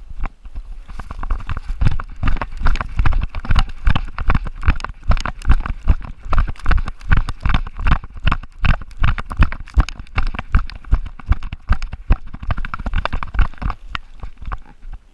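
Running footfalls of a chocolate Labrador retriever, picked up through a camera strapped to its body: a steady rhythm of thumps, about three a second, with rustling of the leaf-littered forest floor.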